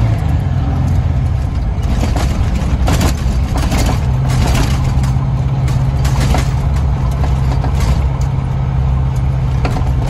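Detroit Diesel 8V92 two-stroke V8 in a Kenworth K100E cab-over truck, running as the truck drives, heard from inside the cab. The engine note drops as the sound begins and pulls steadily again from about four seconds in, with several sharp clicks and rattles along the way.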